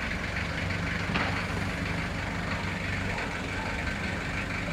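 An engine idling steadily, a low drone, with one short knock about a second in.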